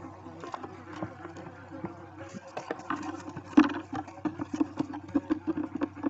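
Barn owls shuffling about in the nest hollow: scratching and rustling on the nest debris and feathers brushing the microphone, with a louder knock about three and a half seconds in, over a steady low hum.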